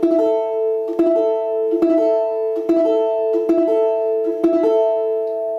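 Balalaika strings picked one after another with the fingers, arpeggiato (перебор). Pairs of plucks come about every 0.8 s, always on the same notes, which ring on between them.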